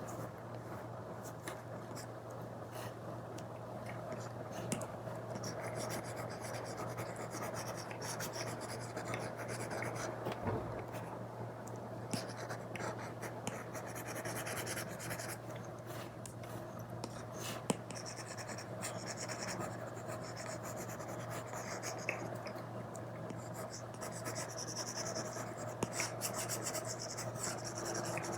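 Apple Pencil Pro tip scratching and stroking across an iPad's matte paper-like screen protector, with occasional light taps of the tip. A low steady hum runs underneath.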